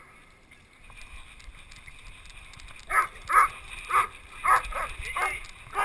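A dog close to the microphone making a quick run of short, loud sounds, about seven in three seconds, starting about three seconds in.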